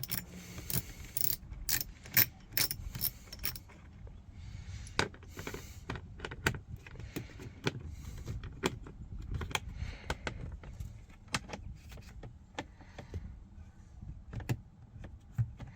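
Socket ratchet clicking in short, irregular runs of sharp clicks, with light metallic clinks, as small screws are backed out with an 8mm socket.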